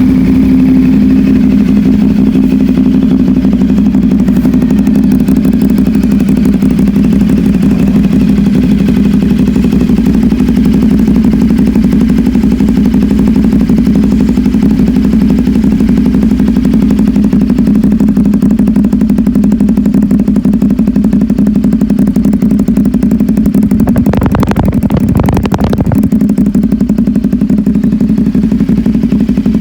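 CFMoto 450SR's parallel-twin engine idling steadily through an SC Project slip-on exhaust, just after starting up. About 24 seconds in there is a short rougher patch lasting about two seconds.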